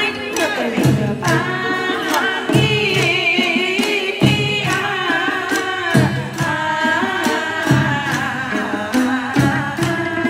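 Chầu văn ritual singing: a group of women singing in unison, with sticks clicking a steady beat on small drums and wooden clappers (phách) and a plucked đàn nguyệt moon lute.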